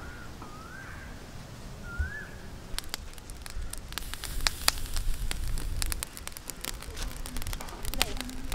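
Crackling and sizzling pops from a charcoal grill as a large marinated barramundi is laid on the wire grate over hot embers; the pops start about three seconds in and grow dense. A bird chirps a few times at the start, over a low rumble of wind.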